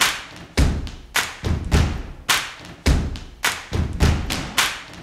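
A steady rhythm of heavy thuds, a little under two a second, each with a sharp crack on top and a quick decay, evenly spaced like a percussion beat.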